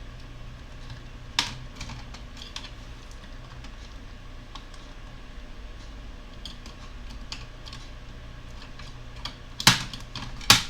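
Scattered light clicks and taps of a laptop's plastic and metal parts being handled as its motherboard is eased out of the chassis, with a cluster of sharper clicks near the end, over a steady low hum.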